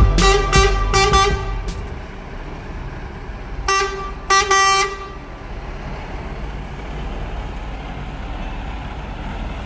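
Mercedes-Benz Actros 1851 truck sounding its horn: a quick run of short toots, then two more about four seconds in, over the low running of the engine as the truck pulls away.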